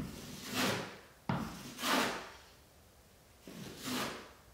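Wide drywall knife scraping spackle across a wall in three swipes as a skim coat is spread and worked smooth. Each swipe starts sharply and swells into a scrape, with a short pause before the last.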